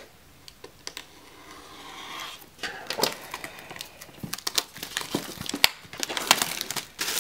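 Clear plastic shrink-wrap on a box being slit with a box cutter and peeled off: crinkling and crackling that starts about two and a half seconds in and grows busier toward the end.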